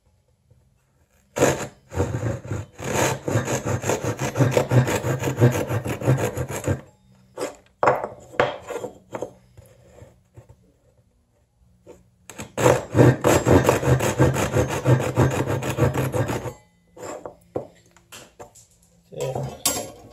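Gyokucho Razor ryoba, a Japanese pull saw, cutting through a small wooden block in rapid back-and-forth strokes. The sawing comes in two runs of several seconds each, with a pause of a few single strokes between them and a short burst near the end.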